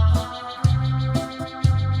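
Yamaha PSR-SX900 arranger keyboard playing a trot tune: held chords over a heavy bass note about once a second, with lighter beats between.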